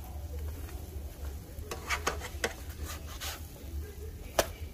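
Black plastic spatula scraping and tapping in a nonstick frying pan as grilled cheese sandwiches are lifted and flipped, with a cluster of clicks about two seconds in and one sharp tap near the end, over a faint sizzle of the frying bread.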